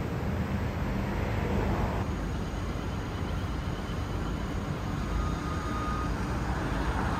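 Steady city traffic noise, a low even rumble with no single vehicle standing out.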